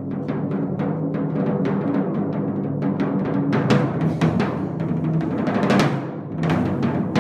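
A pair of handmade timpani with segmented wooden bowls, 20 and 22 inches across, played with timpani mallets in fast repeated strokes, their pitched tones ringing together. The strokes get louder in the middle, dip briefly about six seconds in, then pick up again.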